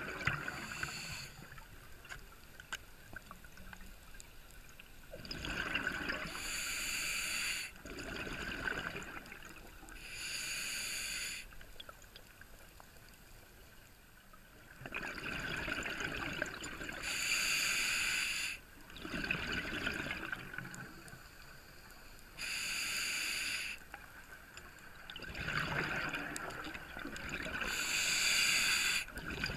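Scuba diver breathing through a regulator at depth: a steady hiss from the demand valve on each inhale, and a rush of bubbles from the exhaust on each exhale. About five slow breaths, each a few seconds apart, with a longer pause near the middle.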